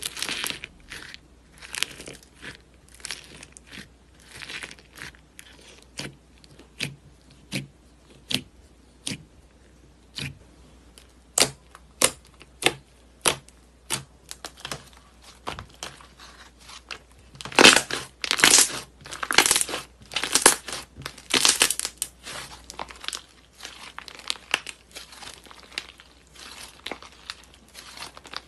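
Hands poking, pressing and stretching white slime: irregular crackly squishes and pops, clustering into a louder run of crackles about two-thirds of the way through.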